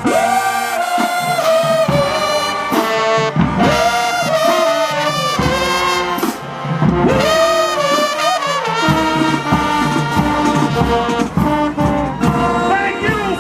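High school marching band's brass section playing a tune, with held notes and several swooping slides up and down in pitch.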